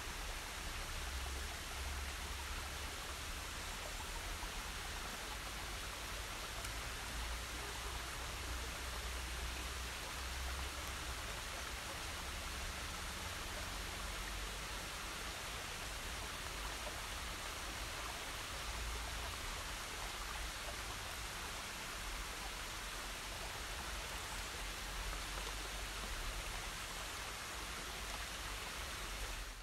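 Steady rushing water noise, an even hiss with a low rumble underneath and no distinct events.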